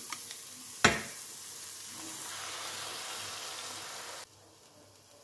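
Mushrooms and onion sizzling in hot olive oil in a frying pan, the sizzle growing fuller as beaten eggs are poured in and stirred with a fork. A single sharp knock about a second in; the sizzle cuts off suddenly after about four seconds.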